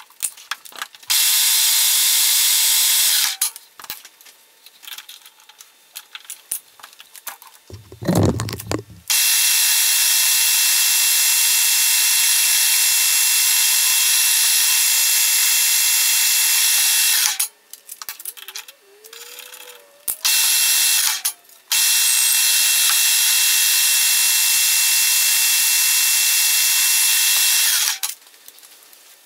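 Colchester Student lathe running with a steady whine while cutting chamfers and grooves in a metal bar. It starts and stops four times: a short run near the start, two long runs of about eight and six seconds, and a brief one in between. In the pauses the tool post and handles click and knock, with one low thump about eight seconds in.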